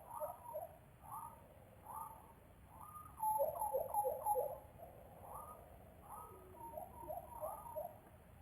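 Tropical birds calling, a string of short low-pitched calls repeated over and over, with a louder, busier flurry of calls about three seconds in.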